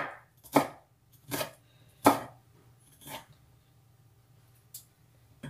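Kitchen knife chopping peeled garlic cloves on a wooden cutting board: five separate strokes, spaced about a second apart.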